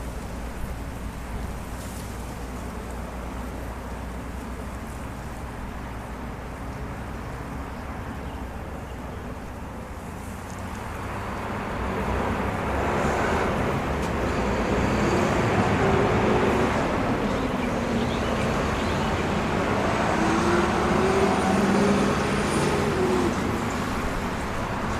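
Steady hum of road traffic, growing louder about ten seconds in as vehicle noise swells and stays up.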